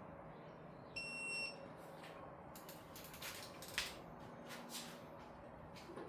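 A single high electronic beep, about half a second long, about a second in, followed by several sharp metallic clicks and clinks of hand tools.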